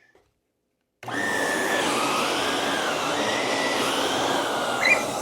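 Shark NV360 Navigator Lift-Away upright vacuum, its suction turned down to the lowest setting, starting suddenly about a second in and running on an area rug, with a whine that wavers in pitch as the nozzle pulls at the rug. A short sharp sound near the end.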